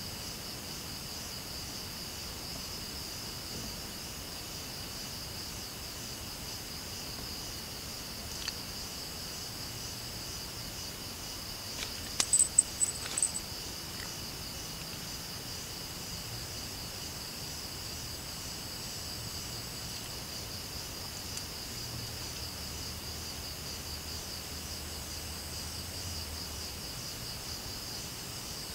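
Steady night chorus of crickets and other insects, a continuous high pulsing trill. About twelve seconds in, a few sharp clicks and short high chirps stand out briefly.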